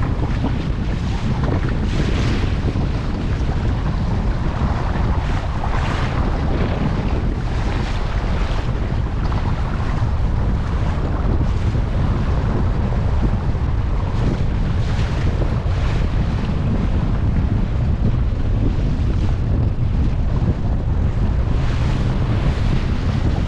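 Strong wind buffeting the microphone with a heavy, steady low rumble, over the rush of water and waves around a sailboat under way in gale-force wind.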